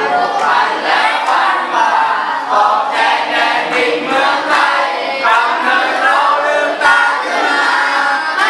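A group of many voices singing or chanting together, loud and without pause.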